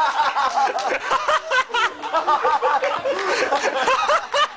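Laughter: rapid, high-pitched bursts from several voices overlapping.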